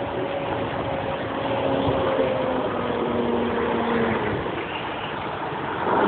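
Road traffic on a wet, slushy street: a steady wash of cars and a truck going by, with an engine tone that slowly drops in pitch over the first few seconds as a vehicle passes.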